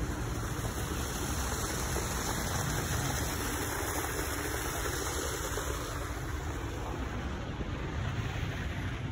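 Water spilling over a small stone cascade into a shallow stone-lined stream channel: a steady rushing, easing a little near the end, over a constant low rumble.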